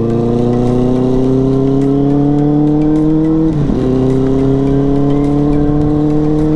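Kawasaki ZX-10R's inline-four engine accelerating, its pitch climbing steadily through the revs. About three and a half seconds in it drops sharply for a quick gear change, then rises again more slowly.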